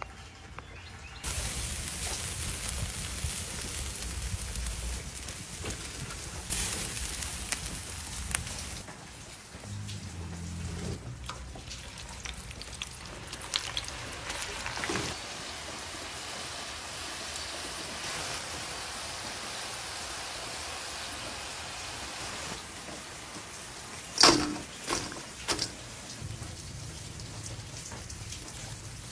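Hot oil sizzling as French fries deep-fry in a cast-iron pot, a steady hiss starting about a second in. Near the end come a few sharp clanks as the fries are tossed in a stainless steel bowl.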